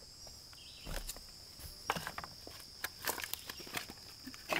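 Footsteps on the loose, flat stones of a dry creek bed: irregular clacks and scuffs of rock shifting underfoot. Over them, a steady high insect drone.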